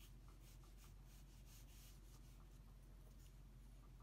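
Faint scratching of a pencil on drawing paper: short, irregular shading strokes, several a second, over a low steady hum.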